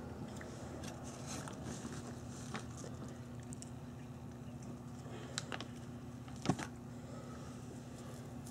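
Maine Coon cats crunching freeze-dried chicken treats: faint, scattered crunches and clicks over a steady low hum, with one sharper crack about two-thirds of the way through.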